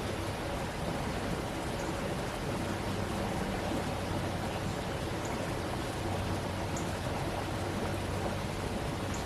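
Stream water rushing steadily, with a faint low hum underneath that grows a little stronger about six seconds in.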